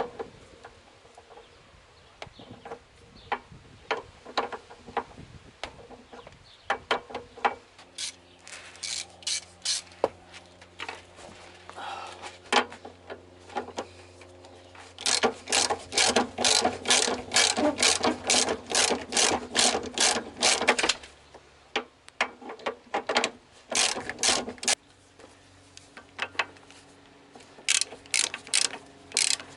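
Hand socket ratchet clicking in runs of quick strokes as fasteners are turned, loudest in a long burst past the middle. A steady low hum runs under the first half of the clicking.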